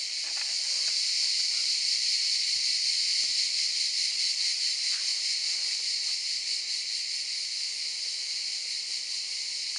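Dense, steady chorus of cicadas in pine trees: an unbroken high-pitched shrill buzz with a slight flutter, called eerie ("unheimlich").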